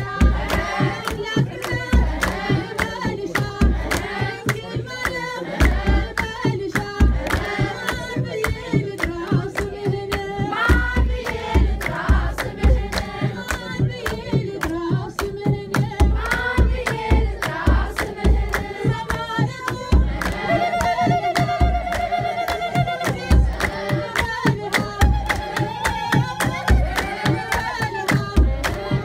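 A group of women singing an Ethiopian Orthodox hymn (mezmur) together, to steady hand clapping and the deep, regular beat of a kebero drum.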